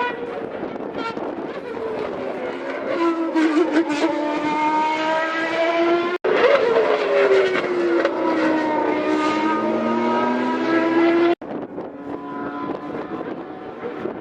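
Toyota TS010's 3.5-litre V10 racing engine running hard on track, its high-pitched note climbing as it accelerates. After a sudden break about six seconds in, the note sweeps down and then climbs again, and it breaks off once more near eleven seconds.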